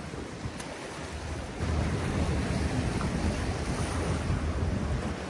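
Waves washing against the rocks of a jetty, with wind buffeting the microphone; the low rumble of the wind grows heavier about a second and a half in.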